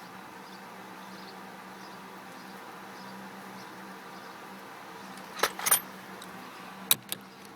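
A few sharp metal clinks of hand tools and wheel-puller parts, a quick pair about five and a half seconds in and two single clicks near the end, over a steady low hum.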